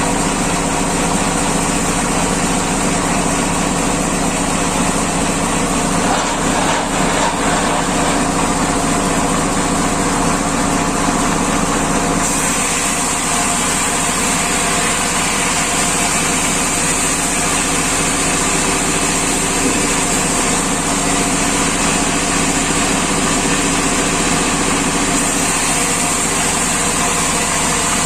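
Engine-driven sawmill machine running steadily, with a high-pitched hiss growing stronger about twelve seconds in.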